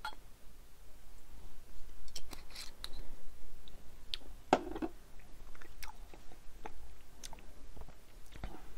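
Scattered small clicks and mouth noises from someone tasting whisky, with a small bottle or cap handled in the fingers. A brief louder rustle comes about four and a half seconds in.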